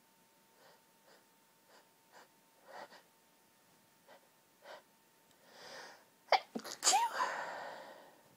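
A woman's high-pitched hay fever sneeze. A run of faint, short catching breaths builds over several seconds, then a long drawn-in breath, then the sneeze bursts out near the end and is the loudest part.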